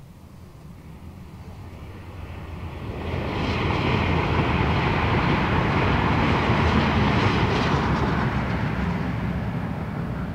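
A passing vehicle: a rushing engine-and-air noise that swells over about two seconds, holds steady, then fades near the end.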